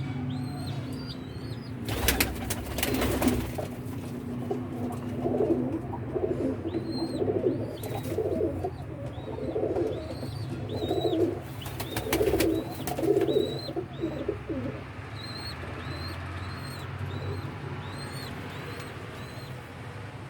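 Pigeons cooing in repeated low pulsing phrases, with a steady series of short high chirps from another bird throughout. Several brief sharp rustles or wing-flaps break in near the start, in the middle and about two-thirds of the way through.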